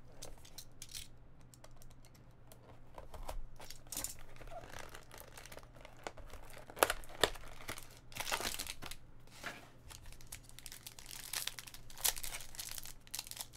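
Plastic wrapper and a cardboard trading-card box being handled and opened: crinkling, rustling and sharp little clicks. Near the end a foil card pack is torn open.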